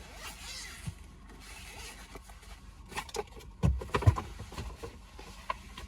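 A zipper being pulled with a rasping rustle, then a cluster of sharp knocks and clatters about three to four seconds in, as a diagnostic scanner is taken out of its case and handled.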